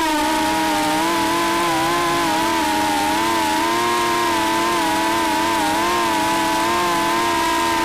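FPV racing drone's electric motors and propellers whining steadily at cruising throttle, the buzzing pitch wavering slightly up and down as the throttle shifts.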